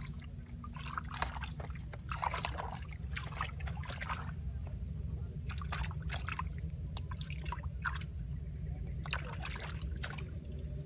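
Muddy water in a shallow hole splashing and sloshing irregularly as hands grope through it for fish, over a steady low hum.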